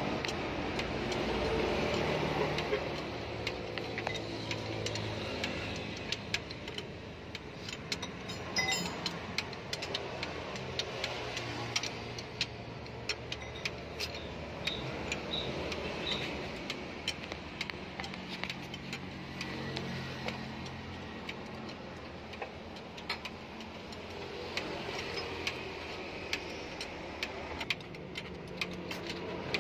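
Scattered light metallic clicks and ticks from hand work with tools on an open Hino 500 truck cylinder head, around the camshaft gear and rocker arms. Under them runs a steady hum of vehicle engine noise that swells and fades.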